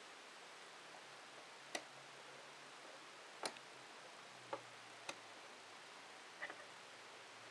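Five or so sharp, irregular clicks from small plastic radio flash trigger receivers and a transmitter being touched and shifted on a tabletop, over a faint hiss.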